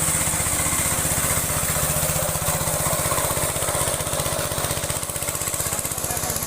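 Small engine running steadily at a constant speed, driving a high-pressure washer pump on test, with an even, fast firing beat and a steady hiss over it.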